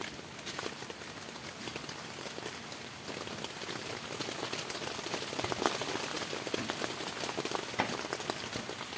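Steady rain pattering, a little louder after about three seconds, with scattered sharp taps and crinkles from food being laid on a sheet of aluminium foil.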